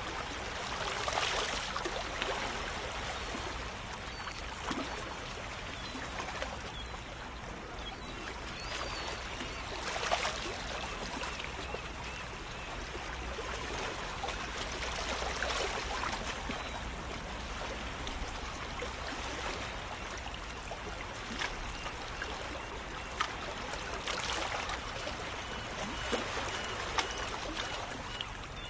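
Steady water ambience of trickling, splashing water, swelling louder four times, each swell lasting about a second or two.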